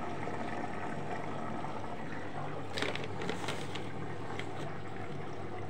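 Arçelik washing machine drum turning at the start of a wash, just after filling with water: steady water-and-laundry sloshing over a low motor hum, with a few faint clicks about three seconds in.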